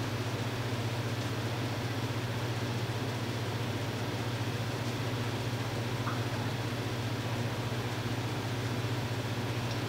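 Steady low mechanical hum with an even hiss over it, unchanging throughout.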